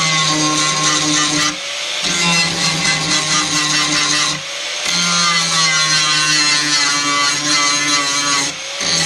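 Electric grinder running under load against the Corvette's floor-pan area, cleaning up the metal. It eases off briefly three times, at about one and a half, four and a half and eight and a half seconds in.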